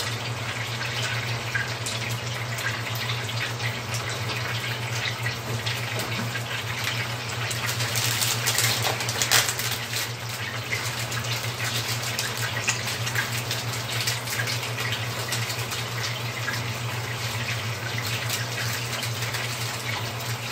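Longganisa sausages sizzling and crackling in a frying pan, a steady frying hiss with a busier stretch of crackle in the middle, over a steady low hum.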